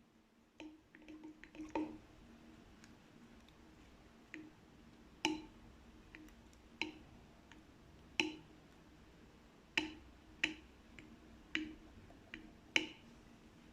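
Slime being squeezed and pressed by hand, giving wet squishes and sharp air-bubble pops. A few small clicks come in the first two seconds, then a loud pop roughly every second or so.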